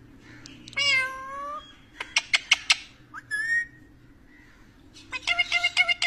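Rose-ringed parakeet calling: a drawn-out, meow-like call about a second in, then a quick run of about five sharp clicks, a short falling note, and a fast series of short chirps near the end.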